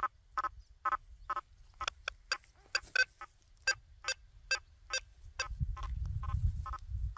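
Quest V80 metal detector giving a quick run of short buzzy beeps, about two a second, as its 9-inch coil is swept over a nailboard. Some beeps sound brighter than others. A low rumble comes in near the end.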